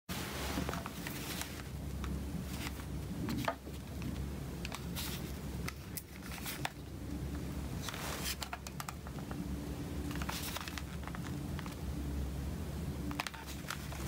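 Handling noise from a Nokia 1260 mobile phone being picked up off a wooden table and turned in the hand: scattered plastic clicks, taps and rubbing over a steady low hum.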